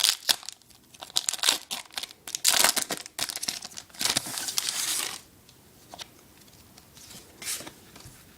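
Foil booster pack wrapper being torn open and crinkled by hand, in a series of sharp rips and crackles over the first five seconds, then a few faint rustles.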